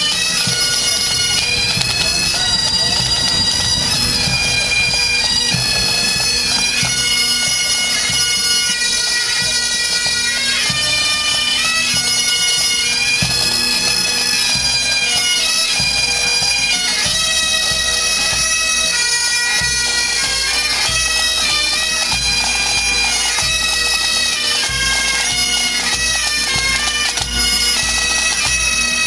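A pipe band of Great Highland bagpipes playing a march tune over their steady drones, with drums beating underneath.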